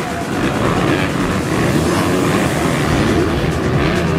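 Several motocross bikes racing past at once, their engines revving up and down over a jump and along the track.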